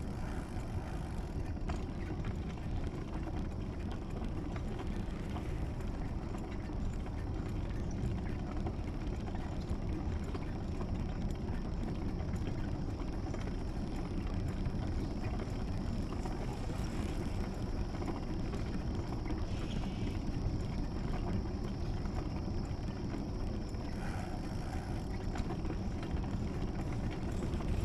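Steady low rumble and hiss of wind and movement noise on a camera travelling along a road, with no distinct events.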